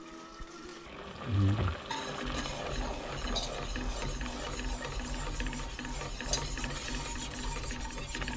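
Metal wire whisk beating liquid in a stainless steel pot, a fast, steady scraping and rattling of wire against the pot that starts about two seconds in. A short low thump comes just before it.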